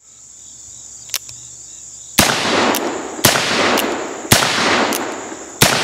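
Four shots from a .44-40 revolver, a replica Remington New Model Army cartridge conversion, firing black-powder cartridges about one a second. Each shot is followed about half a second later by a fainter second report, and there is a light click about a second in, before the first shot.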